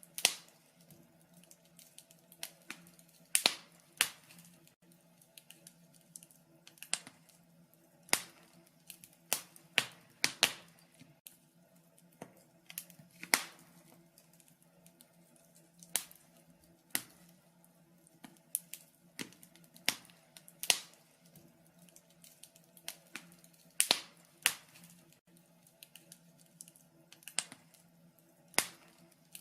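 Wood fire crackling in a fireplace: irregular sharp pops and snaps, some much louder than others, over a faint steady hum.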